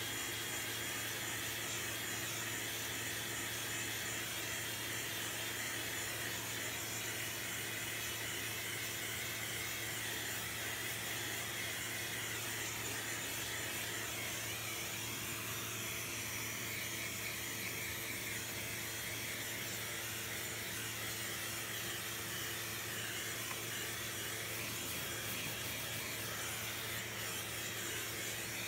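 Vacuum cleaner running steadily with a brush attachment drawn over the slotted plastic grille of a tower fan to suck out dust. Its upper noise wavers slightly as the nozzle moves.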